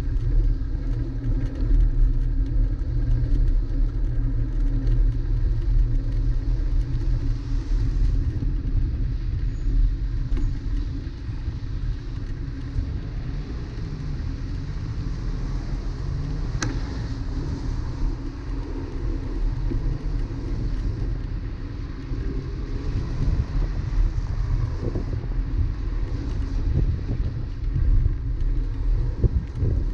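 Steady low rumble of a bicycle ride on a wet city bike lane, picked up by a GoPro, mixed with road traffic alongside. A single sharp click a little past halfway.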